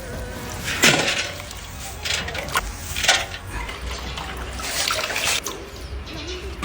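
Water sloshing and splashing in a basin as chive flowers are washed by hand, with a few louder splashes about two seconds apart.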